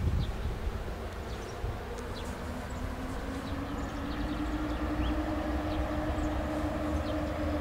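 EU07 electric locomotive pulling away with a passenger train: a steady electric hum that rises slightly in pitch about two to three seconds in and then holds, over a low rumble.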